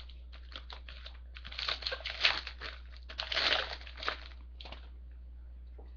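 A trading-card pack wrapper crinkling and rustling in irregular bursts as it is handled and torn open, loudest about one and a half to four seconds in.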